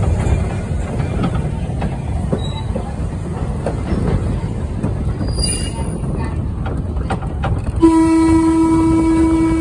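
Freight train rolling past, with a steady low rumble of steel wheels on rail and a brief high wheel squeal about halfway through. Near the end a train horn starts and holds one steady note.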